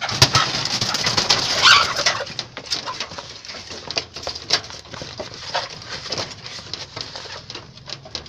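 A flock of chickens calling and clucking, loudest for the first two seconds, then settling into scattered short calls.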